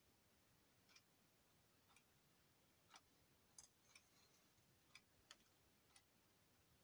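Near silence with a faint clock ticking about once a second, plus a few extra soft clicks in between.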